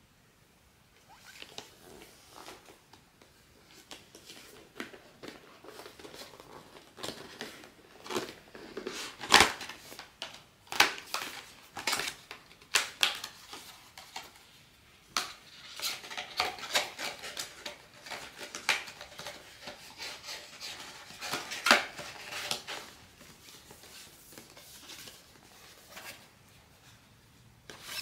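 Close handling of a small hard PVC blind-box figurine and its parts: irregular sharp clicks and taps of plastic on plastic and on the tabletop. The clicks are loudest about nine seconds in, with a busier run of them in the second half.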